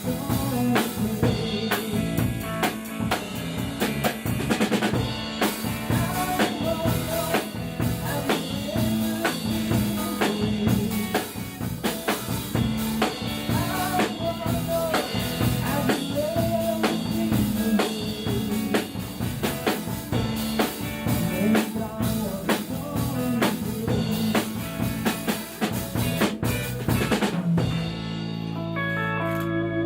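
Rock band music: a drum kit keeps a steady beat under bass and guitar. Near the end the drums stop and a final chord rings out.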